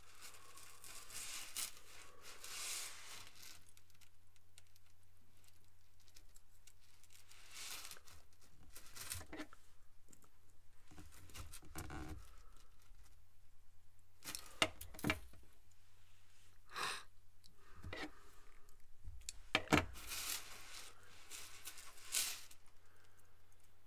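Chainmail being woven by hand: small blackened stainless steel rings handled and closed, giving scattered rustles and metallic clicks and clinks, with a few sharper clicks in the second half.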